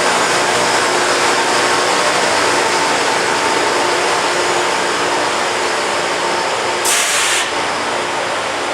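Loram rail grinding train at work: a loud, steady hiss of the grinding stones on the rail over a low machinery hum. A brief burst of sharper hiss comes about seven seconds in.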